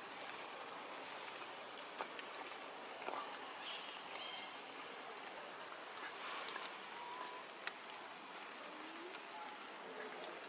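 Forest background: a steady hiss with faint, scattered short chirps and calls, and a brief high buzz about six seconds in.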